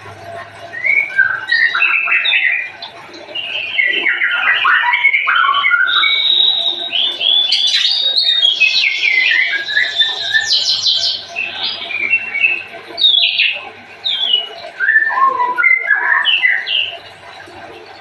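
White-rumped shama singing a long, varied song of rapid whistles, pitch glides and trills, with a few short pauses.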